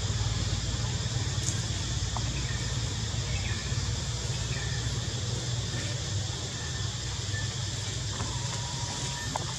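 Steady outdoor background noise: a low rumble under an even hiss, with a few faint short high sounds.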